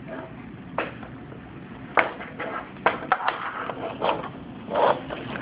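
Handling noise of a VGA cable being unplugged and moved: a string of irregular clicks and knocks, with a short rustle near the end.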